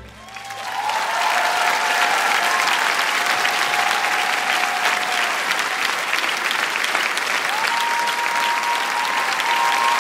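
Theatre audience applauding steadily after the final chord, the clapping swelling over the first second, with a few long held calls from the crowd over it.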